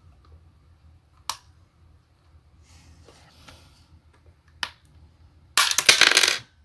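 A burnt power bank being pried apart by hand: two sharp clicks, then near the end about a second of loud cracking and crunching as one of its parts breaks.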